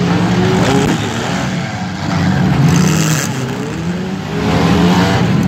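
A pack of front-wheel-drive demolition derby cars revving their engines together as the derby gets under way, the pitch rising now and then as drivers floor it. A brief harsh burst of noise comes about two and a half seconds in.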